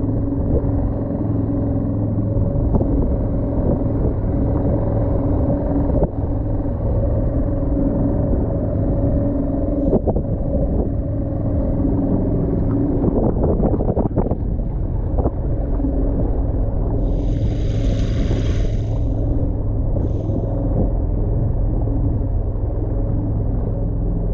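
Outboard motor of an inflatable dinghy running steadily, with a brief rushing hiss about three-quarters of the way through.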